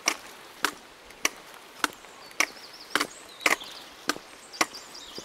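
A hiker's steady walking pace: about ten sharp, evenly spaced taps, roughly two a second. Faint bird chirps come in partway through and again near the end.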